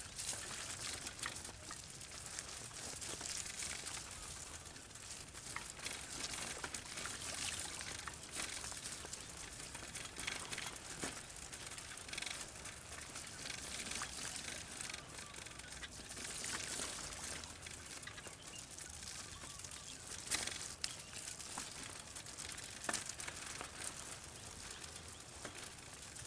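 Wet outdoor ambience after rain: water trickling and dripping, with a scatter of small clicks and crunches.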